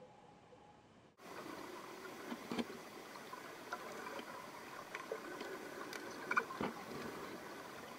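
Underwater pond ambience picked up by a submerged camera: a steady hiss scattered with clicks and pops. It cuts in abruptly about a second in, after a quieter stretch.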